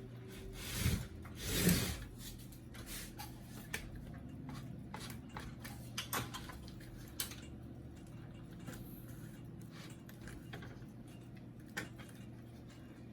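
Plastic casing of an HP LaserJet P1102 printer being handled and worked loose: two rubbing scrapes in the first couple of seconds, then scattered light clicks and taps of plastic parts.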